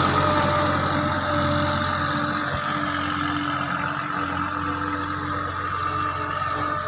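Sonalika mini tractor's engine running steadily as it drives in a loop, fading a little as it moves away and growing louder again near the end as it comes back.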